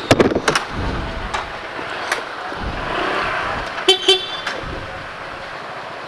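Two short vehicle horn toots in quick succession about four seconds in, over street traffic noise, with a few sharp clicks at the start.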